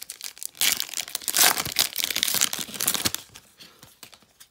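Wrapper of a 2017 Panini Playoff football card pack being torn open and crinkled by hand: a dense crackling rustle lasting about two and a half seconds, trailing off toward the end.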